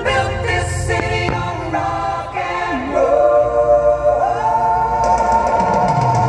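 Choral singing in the display's music, with long held notes in the second half. A few sharp firework bangs cut through in the first second or so, over a low rumble.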